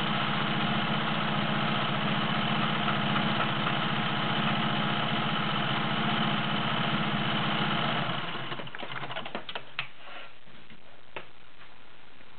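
Singer 500A Slant-O-Matic all-metal, gear-driven sewing machine running steadily at speed, stitching a cam arrowhead pattern. About eight seconds in it slows and stops, followed by a few light clicks.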